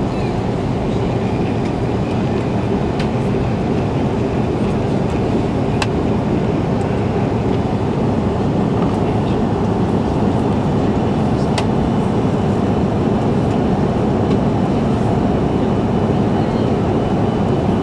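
Steady cabin noise inside an Airbus A330-300 climbing after takeoff: the drone of its Rolls-Royce Trent 700 engines and rushing air, with a few faint ticks.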